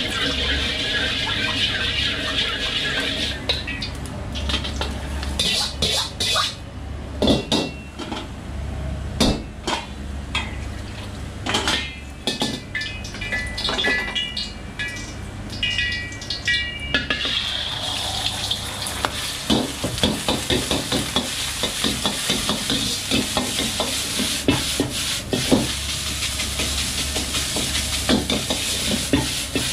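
Wok cooking: oil sizzling in a hot carbon-steel wok and a steel ladle clanking and ringing against the wok and metal prep bowls. A little over halfway through, the beaten egg and rice go in and a loud sizzle rises. The ladle then knocks and scrapes rapidly against the wok as the egg fried rice is stirred, over a steady low hum from the range.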